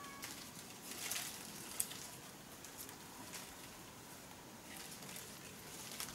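Leaves and branches rustling and crackling in irregular bursts as someone climbs a tree, with one sharp click a little under two seconds in.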